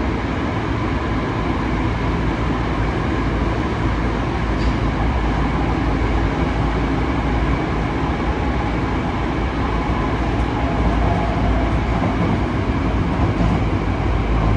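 Running noise of a Yokohama Municipal Subway 3000S-series train with Mitsubishi IGBT-VVVF control, heard from inside the car in a tunnel: a steady rumble of wheels and running gear on the rails.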